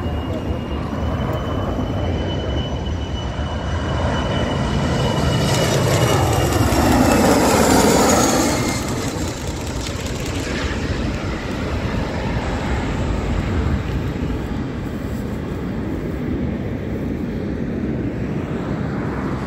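Boeing 737-300's CFM56 turbofan engines on landing approach: a steady engine rumble with a high whine, growing loudest about seven to eight seconds in, where the whine dips in pitch, then settling into a steadier roar.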